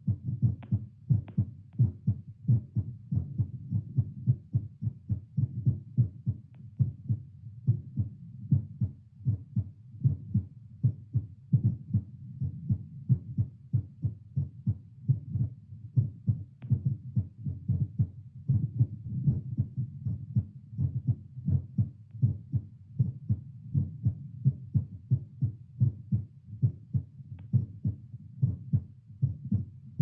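Heartbeat picked up by a Littmann CORE digital stethoscope on the chest: a steady, even run of low lub-dub beats at a resting rate of roughly 80 to 90 a minute, easing down to about 78 near the end as it settles back to baseline.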